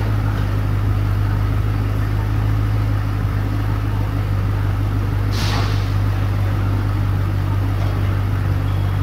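2009 Holden Commodore's 6.0-litre V8 idling steadily, with no revving. A brief hiss about five seconds in.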